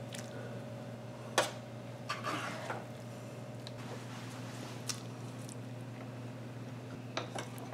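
Wooden spoon scooping shredded chicken off a plastic cutting board and dropping it into tomato sauce in a slow cooker: a few soft wet squelches and light knocks, the sharpest a little over a second in, over a steady low hum.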